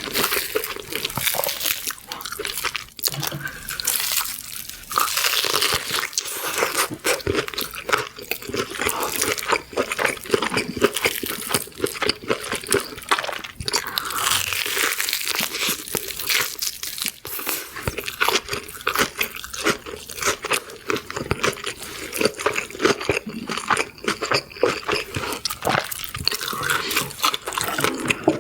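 Close-miked crunchy chewing and biting: a dense, continuous run of crisp crackling crunches.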